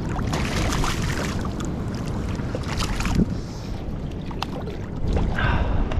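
Water splashing as a hooked snapper thrashes at the surface beside a kayak, with sharp splashes in the first few seconds, over wind noise on the microphone.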